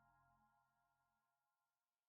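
Background music fading out into silence.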